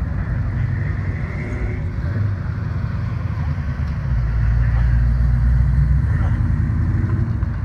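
Classic vehicle engines running as they drive slowly past. A lifted early-1970s Chevrolet pickup's engine gets louder as it passes close about four seconds in.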